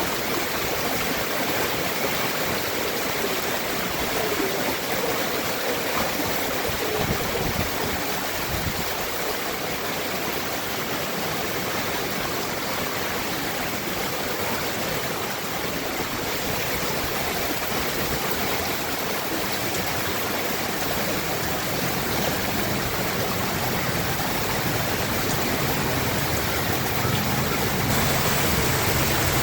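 Floodwater rushing steadily through a flooded street and its overflowing gutters.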